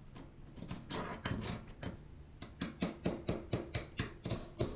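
Hammer striking a pry bar used as a chisel to cut cement backer board (Wonder Board) along a grout line: a run of sharp strikes starting about a second in, coming faster, about three a second, in the second half.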